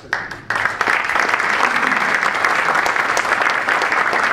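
Audience applauding at the end of a talk. A few claps at first, then full, steady applause about half a second in.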